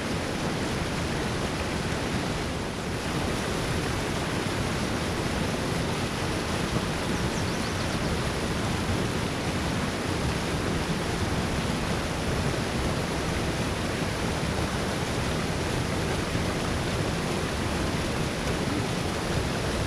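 Spillway outflow rushing over and through foaming white water: a steady, even noise with no breaks.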